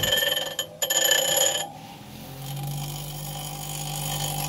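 Einhell bench grinder with a soldering iron's tip held against its spinning wheel to sharpen the tip: a loud high-pitched squeal for about a second and a half, broken once briefly, then the motor's steady hum with a hiss of the tip on the wheel.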